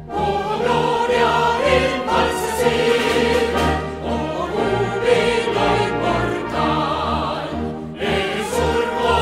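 Orchestral music with a choir singing in sustained phrases, the sound dipping briefly between phrases about eight seconds in.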